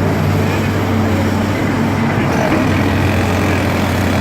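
Diesel engines of excavators running steadily, a low even drone with no change in pitch.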